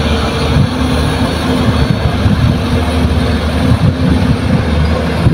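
Engine of a light dump truck loaded with soil, running steadily and loud under load as it pulls away along a dirt haul road, with a deep steady hum and a fixed higher tone above it.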